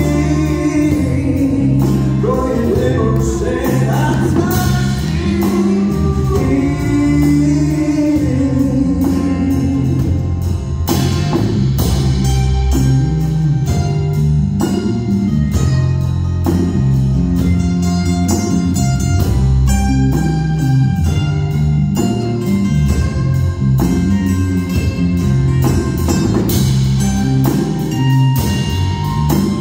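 A live band plays a song in an acoustic arrangement, with acoustic guitars, cajón and cymbals, and electric guitar, and a man singing lead.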